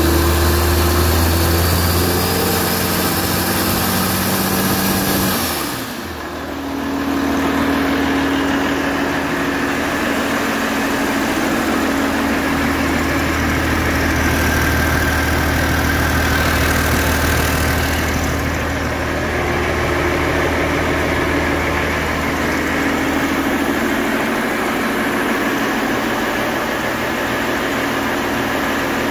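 Rebuilt International DT466C turbocharged inline-six diesel engine running steadily on a test stand. About six seconds in its sound dips briefly, then settles and carries on evenly.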